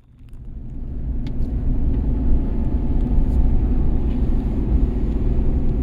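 A vehicle on the move: a steady low rumble of engine and road noise that builds up over the first second or two.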